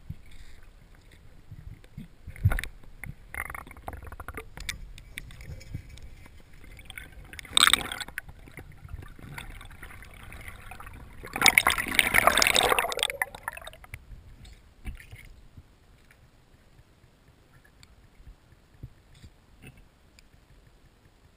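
Freediver's underwater camera audio: a few muffled knocks and bumps, then a loud rush of splashing and bubbling for about two seconds halfway through as the diver reaches the surface, then quieter water noise.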